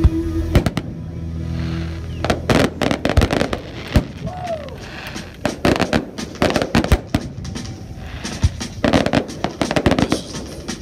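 Aerial fireworks shells bursting: many loud bangs, several in quick clusters.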